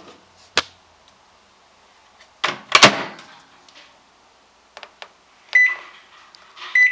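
Microwave oven door shutting with a clunk, then keypad buttons clicking and two short electronic beeps as the cooking time is set to two minutes.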